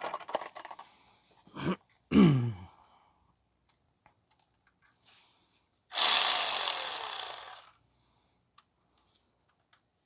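Tools working a clamp onto a loose exhaust heat shield: metal clicks and knocks, with a loud short knock that drops in pitch about two seconds in, then a power tool runs for about a second and a half from about six seconds in, tightening the clamp.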